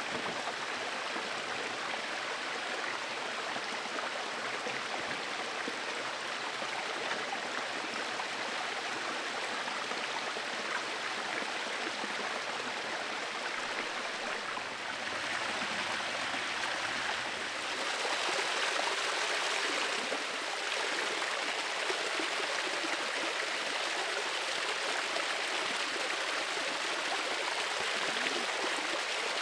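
Running water making a steady rushing, trickling sound that grows a little louder about two-thirds of the way through.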